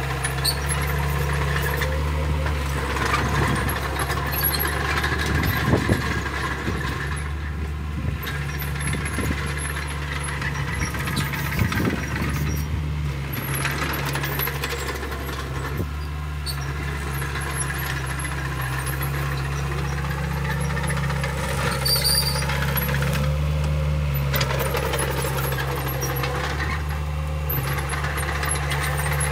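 Mini crawler bulldozer's diesel engine running steadily as the machine pushes dirt, with occasional clanks and rattles from its tracks and blade.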